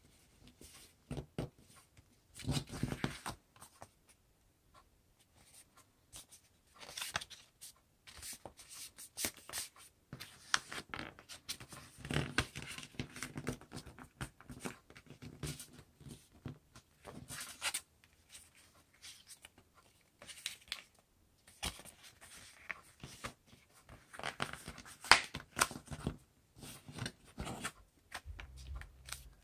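Sheet of origami paper being folded and creased by hand: crinkling and rustling in irregular spells with short pauses, the sharpest crackle a little before the end.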